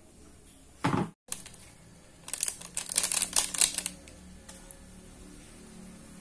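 Kitchen noise at a wok: a short, loud rustling thump about a second in, then a rapid run of sharp clicks and rattles lasting about a second and a half. This comes while seasoning is being added to the simmering sauce.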